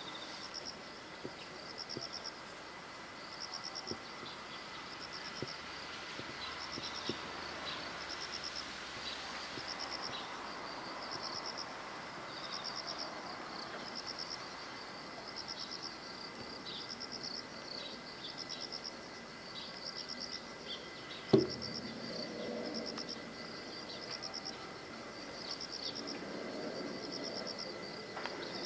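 Outdoor ambience: a steady background with short, high-pitched pulsed trills repeating about once a second, a few quick falling chirps, and a single sharp knock about 21 seconds in.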